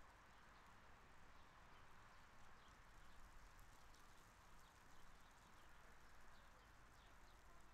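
Faint outdoor ambience: a steady hiss of distant background noise with scattered faint bird chirps.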